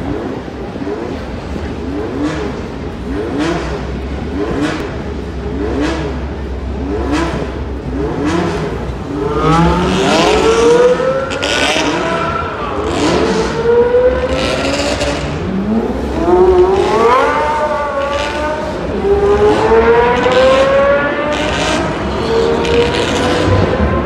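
A line of supercars, Paganis among them, accelerating one after another, engines revving with rising pitch. From about nine seconds in the revving gets louder, with long rising sweeps repeating as the engines climb through the gears.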